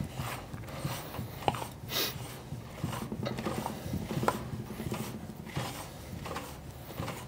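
DF83 coffee grinder's grind-adjustment ring being turned by hand, the burr carrier's threads rubbing with irregular small clicks, the two sharpest about a second and a half in and just past four seconds. The ring is being wound toward the zero point where the burrs meet.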